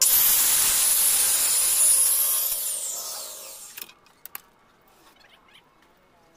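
Handheld circular saw cutting along a teak beam, its motor whining high. About two and a half seconds in it is released and the blade winds down with a falling whine, followed by a few light knocks.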